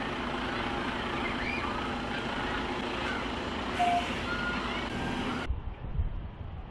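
Diesel engine of a Mercedes-Benz heavy-haulage tractor unit running steadily as it pulls a multi-axle low-loader slowly past, with birds chirping over it and a single short beep about four seconds in. About five and a half seconds in the sound cuts abruptly to a duller low rumble with a few knocks.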